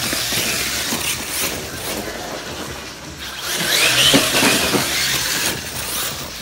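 Arrma Kraton 6S brushless electric RC truck driven hard on a dirt path: the motor's whine mixed with the noise of tyres churning the dirt, swelling to its loudest about four seconds in as the truck accelerates.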